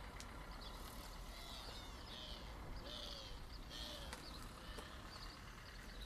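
Faint outdoor ambience: small birds chirping in a run of short, repeated high calls through the middle, over a steady low rumble, with a few faint clicks.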